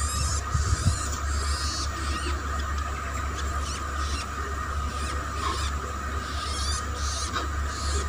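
Juvenile long-tailed shrike giving short, harsh, high-pitched calls in several clusters, beak gaping toward a feeding hand: a fledgling begging for food.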